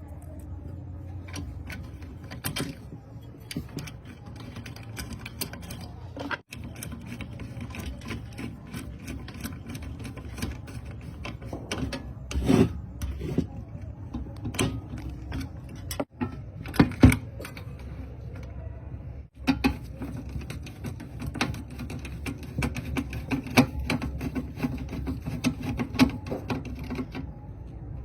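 Irregular mechanical clicks and taps over a steady low hum, broken by a few sudden cuts.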